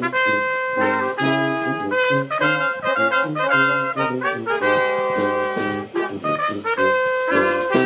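Brass quintet of two trumpets, French horn, euphonium and tuba playing game-show theme music live, with a drum kit keeping time on cymbals.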